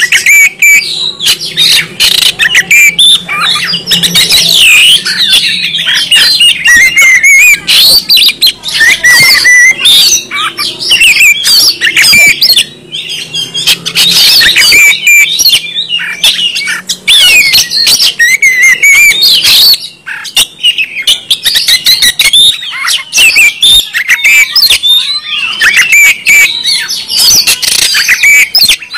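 Oriental magpie-robin (kacer) singing loudly and without pause: a fast, varied stream of whistles, trills and sharp chattering notes, packed with mimicked phrases.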